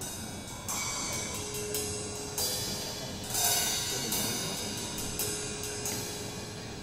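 Recorded music with drums and cymbals played back over PMC studio-monitor loudspeakers in a listening room, with cymbal crashes about a second in and again near the middle.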